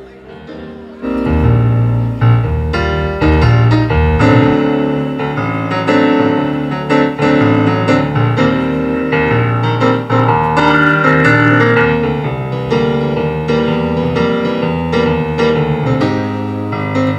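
Keyboard played alone on a piano sound, chords over a moving bass line, starting about a second in. This is the keyboard's line check during a band sound check.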